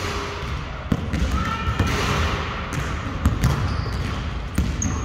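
Basketballs bouncing and being dribbled on a hard court, a string of sharp knocks at irregular intervals, with brief high squeaks here and there.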